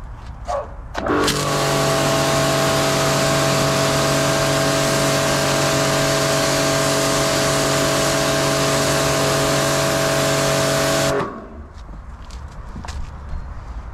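Bormann Pro BPW 5000 pressure washer running with the spray on: a steady motor hum under a loud hiss of the water jet. It starts abruptly about a second in and cuts off about ten seconds later, when the trigger is released.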